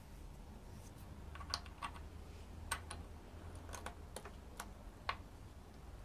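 Small steel parts of a BMW VANOS unit (washers, bearings, ring and spacer) clicking against each other and the housing as they are handled and fitted, about a dozen light, sharp clicks at uneven intervals over a faint low hum.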